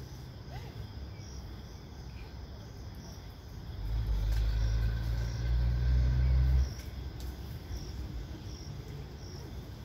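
Outdoor ambience: a faint high chirp repeating about once a second, with a loud low rumble that comes in a little under four seconds in and stops abruptly about three seconds later.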